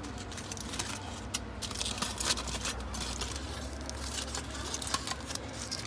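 Aluminium foil wrapper unfolded by hand, crinkling in a run of irregular crackles, over a steady low hum.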